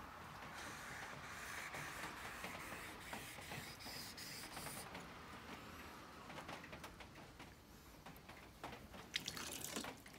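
Japanese plane blade's back rubbed on a wet 1000-grit waterstone: a faint wet scraping hiss for about the first half, then scattered small clicks and drips.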